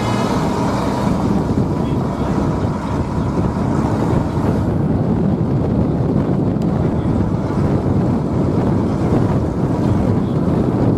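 Steady low rumble of a moving vehicle heard from on board, with wind buffeting the microphone.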